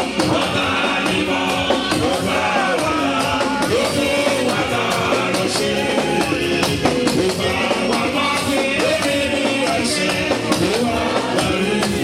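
Church praise-worship music: singing over a steady percussion beat.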